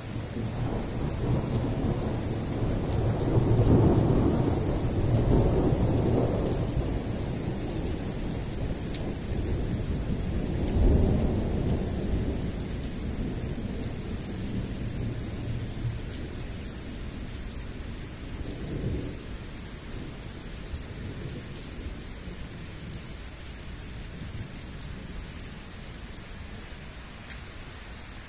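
Thunder rolling over steady rain. The long low rumble builds from the start, swells about four seconds in and again near eleven seconds, rolls once more more weakly near nineteen seconds, then dies away under the rain.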